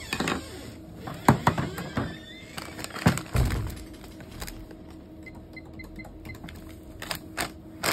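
Groceries and a wire shopping basket being handled on a shop counter: scattered knocks and clacks, with a few faint short beeps near the middle over a low steady hum.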